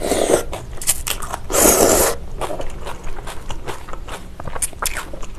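Close-miked eating of cold agar-jelly noodles in chilled broth: two loud slurps from a spoon, a short one at the start and a longer one about a second and a half in, then chewing with many small wet clicks and crunches.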